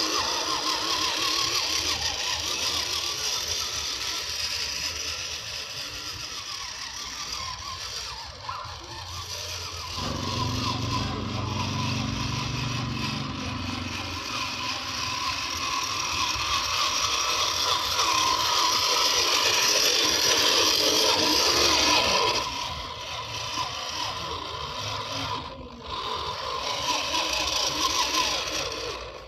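Electric motor and gear drive of a 1/10-scale RC rock crawler whirring as it drives, changing in level with the throttle, with some rattling.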